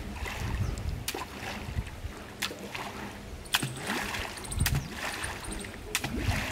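Shallow canal water splashing and sloshing as a fishing net is hauled through it, with several sharp clicks about once a second.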